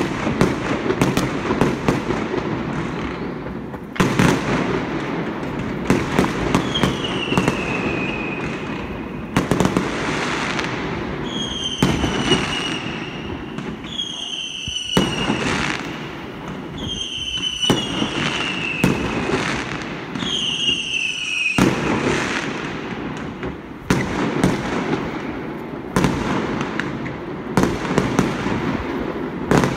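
Fireworks going off: repeated sharp bangs over continuous crackling. In the middle stretch, about six whistling fireworks each give a whistle that falls in pitch.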